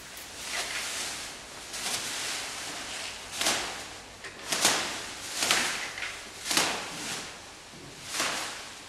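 Hanging strips of plastic bags rustling and swishing as they are pushed and brushed aside, in uneven swells about once a second.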